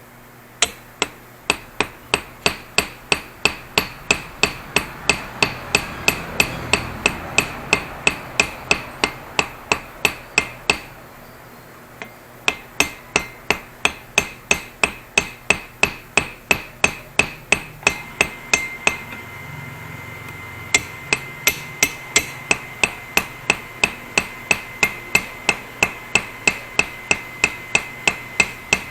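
Hammer striking metal in a steady run of rapid blows, about three a second, pausing twice; in the later blows a high ringing tone hangs on between strikes.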